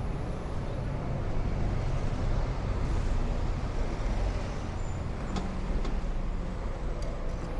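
Busy city street traffic: the engines of passing road vehicles running with a steady low rumble, with a few short clicks in the last couple of seconds.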